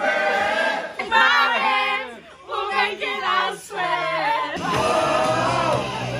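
A group of voices singing together, choir-like. About two-thirds of the way through the sound cuts to singing over a steady low accompaniment.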